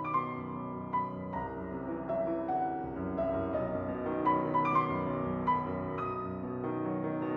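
Background piano music: a melody of struck notes over held lower notes, gradually getting louder.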